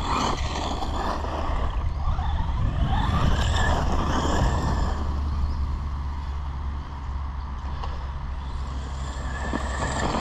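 Brushless electric motor of a Maverick Quantum 2 Flux 3S RC monster truck whining, its pitch rising and falling as the throttle is worked, over a steady low rumble.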